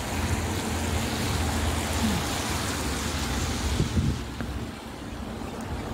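Street traffic on a rain-wet road: a steady hiss of tyres on wet asphalt with a low rumble, heaviest in the first couple of seconds.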